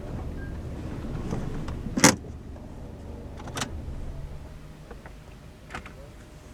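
Inside a car: a low rumble that slowly fades, with three sharp clicks, the loudest about two seconds in.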